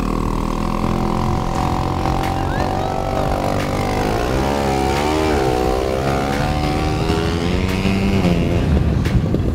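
Engine of a Jiger 152 six-wheeled amphibious ATV running under load, its pitch rising and falling around the middle as the machine climbs out of the water and up the ramp.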